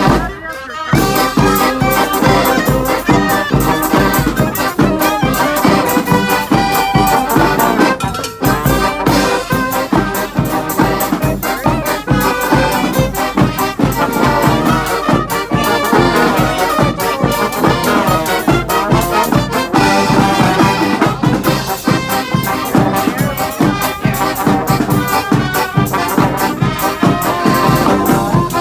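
Live brass street band playing a tune with horns over a steady drum beat, with a short break just after the start and another about eight seconds in.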